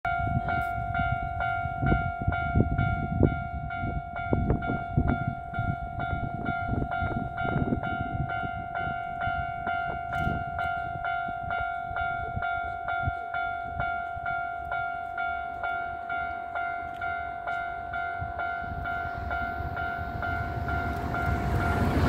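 Japanese level-crossing warning bell ringing steadily, an electronic ding at a little over two strokes a second, which signals that a train is coming. Irregular low rumbling and thuds run under it in the first half. Near the end the noise of an approaching Osaka Metro 66 series electric train rises.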